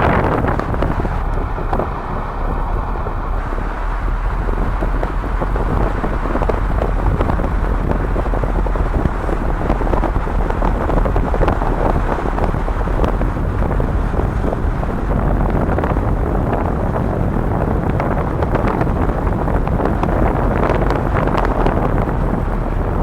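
Strong gusty wind buffeting the microphone, a constant loud rumble. About a second in, a thin steady high tone sounds for about two seconds.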